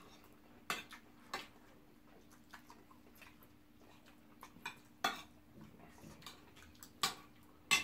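Fork tapping and scraping on a plate of rice and stew: scattered sharp clicks several seconds apart, with fainter ticks between them.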